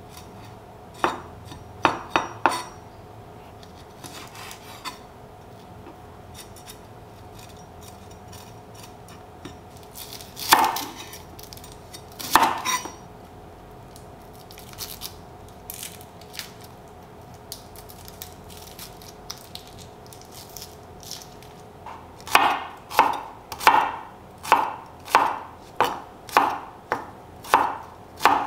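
Chef's knife chopping on a bamboo cutting board: a few cuts through red chillies in the first seconds, two louder knocks about halfway through, then steady chopping of red shallots at about two strokes a second near the end. A faint steady hum runs underneath.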